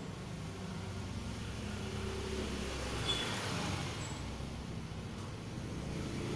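Motor vehicle engine running, a low rumble with a swell of noise about three seconds in.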